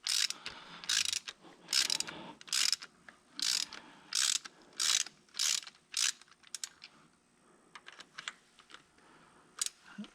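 Hand ratchet wrench clicking in short back-and-forth strokes, about nine of them, as it backs out threaded parts that still hold thread-locking compound and will not spin off by hand. The strokes stop after about six seconds, leaving a few scattered faint clicks.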